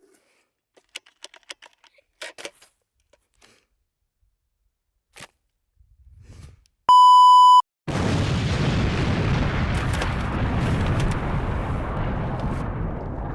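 A loud censor-style bleep, a single steady tone lasting under a second, cuts in after a few faint clicks. Right after it comes a loud, long rumbling explosion sound effect that slowly fades.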